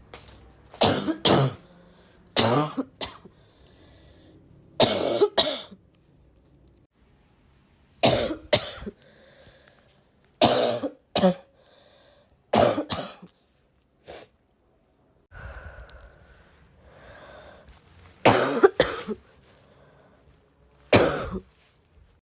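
A person coughing over and over: short coughs, often two in quick succession, coming every second or two and sometimes several seconds apart.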